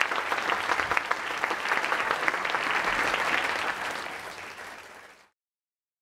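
Large audience applauding at the end of a talk, a dense patter of many hands clapping; it fades from about four seconds in and then cuts off.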